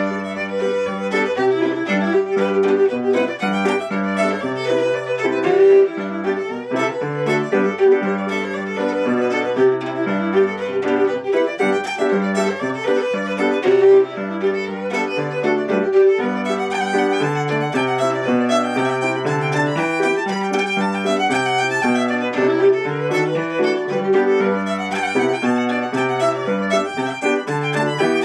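Fiddle playing an Irish reel: a steady stream of quick notes, with a lower instrument sounding bass notes and chords underneath.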